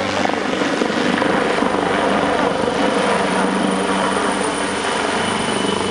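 AgustaWestland AW139 twin-engine helicopter in flight, its rotor and engines running with a steady chop.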